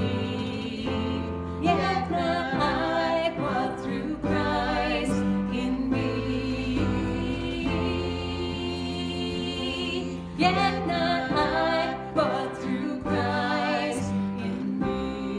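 Worship song: singing with vibrato over a sustained instrumental accompaniment.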